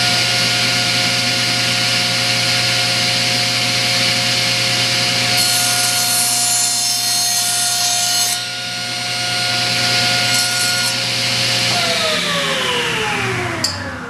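Table saw running steadily; about five seconds in its blade cuts through a plywood panel for about three seconds, and near the end the saw is switched off and its motor winds down with a falling hum.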